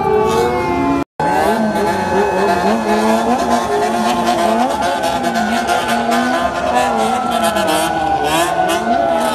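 Several motorcycle engines revving up and down, overlapping and continuous. The sound cuts out briefly about a second in.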